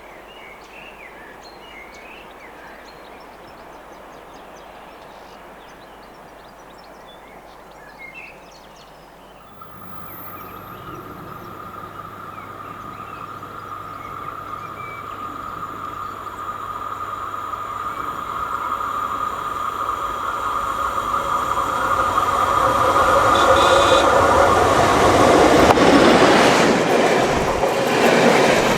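Faint bird chirps over quiet outdoor ambience, then, after an abrupt change about a third of the way in, a BDZ Skoda 68E (class 44) electric locomotive hauling a passenger train approaches, growing steadily louder with a steady whine and hum, until the rumble and rail noise of the train passing close near the end.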